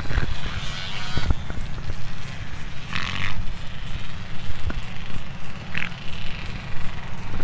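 Trigger spray bottle squirting salt-removing solution onto a jet ski engine, in three short hissing sprays with a few trigger clicks. Under them is a steady low rumble of wind on the microphone.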